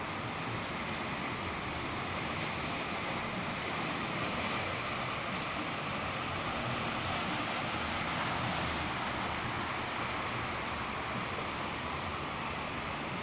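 Small waves breaking and washing over shoreline rocks: a steady rush of surf, swelling slightly in the middle, with wind on the microphone.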